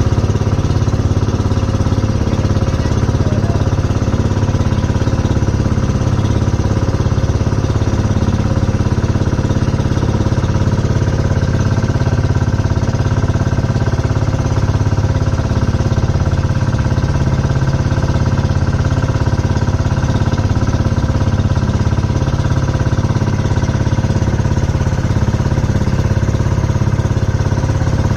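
Engine of a motorized outrigger boat running steadily under way, a loud even drone that holds the same pitch throughout.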